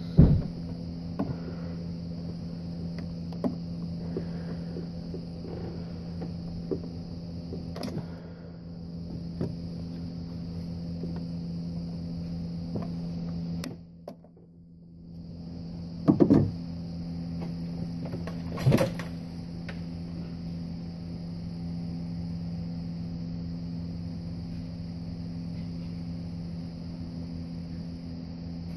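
Hands handling the plastic thermostat housing and rubber coolant hoses, giving scattered clicks and knocks, the loudest two about 16 and 19 seconds in, over a steady low hum.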